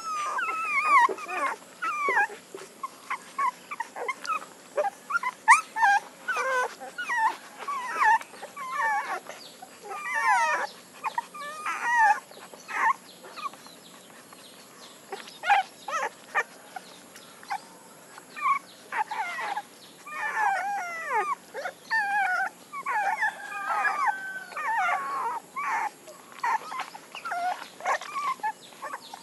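Nursing puppies squeaking and whimpering, a steady stream of short high squeals that bend up and down in pitch, overlapping one another, with a brief lull around the middle.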